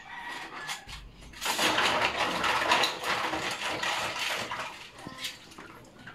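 Dishes washed by hand: water splashes and pours over plastic bowls and plates for a couple of seconds starting about a second and a half in, with light clatter of the bowls and plates knocking together before and after.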